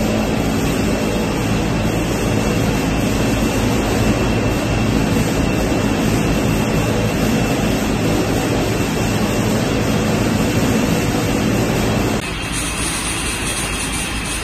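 Steady machine noise of a PET bottle sorting line running: conveyors and sorting machinery with a low hum. About twelve seconds in, the noise changes abruptly to a slightly quieter machine sound.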